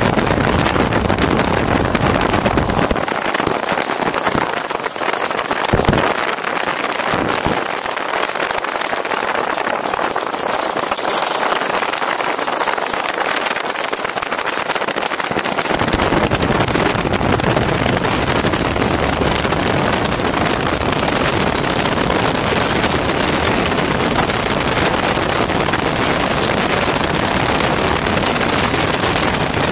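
MiniMax ultralight's Hirth F-33 single-cylinder two-stroke engine running at low power while taxiing on grass, with wind noise on the microphone. A low rumble drops away a few seconds in and comes back about twelve seconds later.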